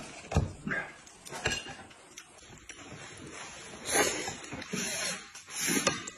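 A man eating noisily: short slurps and smacks in the first couple of seconds, then a longer, airy slurping stretch about four to six seconds in.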